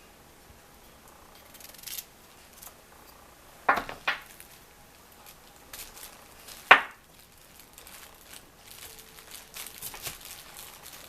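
Knife cutting cauliflower florets in half: a few short, sharp cuts, two close together about four seconds in and the loudest near seven seconds, with fainter clicks between.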